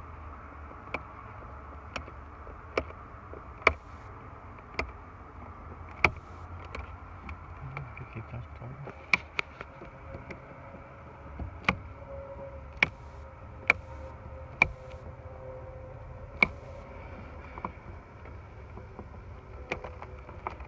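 Irregular sharp clicks and snaps, roughly one a second, of pliers and wire connectors as relays and wires are pulled off a vehicle's electrical panel, over a steady low hum.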